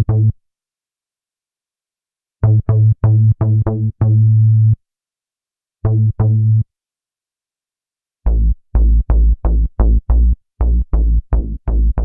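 ReFX Nexus 4 software synthesizer's 'Jup4 Bass' preset played in short, separate bass notes, with silence between the groups. There are a couple of notes at the start, a quick run about two and a half seconds in, two notes around six seconds, then a fast stream of shorter, lower notes, about three a second, over the last four seconds.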